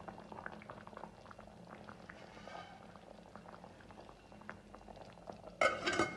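Sweet corn soup bubbling on the boil in a stainless steel pan, many small irregular pops, while a spatula stirs it. Near the end a stainless steel lid is set onto the pan with a brief, loud metallic clatter.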